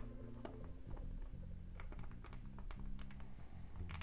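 LEGO plastic bricks clicking and tapping as they are handled and pressed onto a build, a scatter of small sharp clicks with a louder one near the end, over quiet background music.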